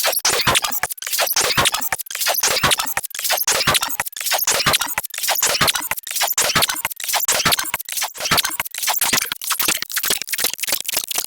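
A cartoon hiccup sound effect sped up many times over, heard as a dense, rapid stream of high squeaky clicks and chirps.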